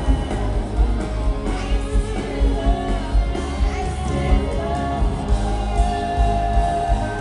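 Live pop-rock band playing loud over a steady drum beat, with a woman's voice singing held notes, recorded from the audience in a concert hall.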